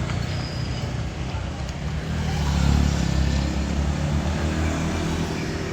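Tour bus engine running as the bus passes, a low rumble that swells to its loudest about halfway through and then eases off. No horn sounds.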